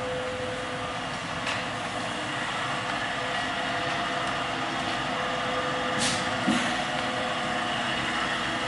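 Steady hum and hiss of an industrial belt furnace's blowers and gas flow, with a constant tone. A few short clicks sound over it, once about a second and a half in and twice about six seconds in.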